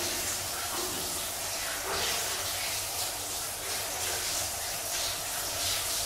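Shower running: water spraying steadily, a constant hiss with small irregular splashy flickers.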